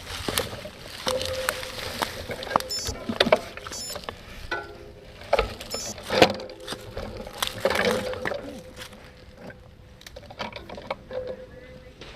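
Bicycle rattling and clattering over a rough dirt trail, with frequent sharp knocks as the wheels hit bumps and a faint steady whine that comes and goes.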